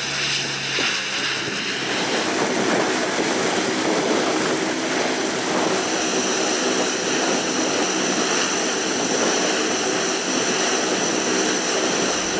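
The four turboprop engines of a C-130 Hercules running on the ground, a steady drone overlaid with a constant high whine.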